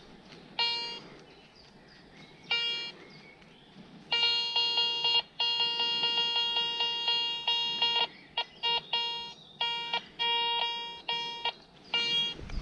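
Garrett metal detector sounding its target tone as the search coil is swept over a freshly dug hole, signalling metal there. Two short beeps come first, then a long pulsing tone, then a run of broken beeps.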